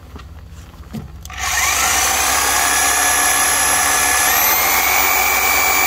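Corded electric jigsaw switched on with a click and run free in the air, not cutting: its motor whines up to speed about a second and a half in, then steps up to a higher, steady pitch about four seconds in.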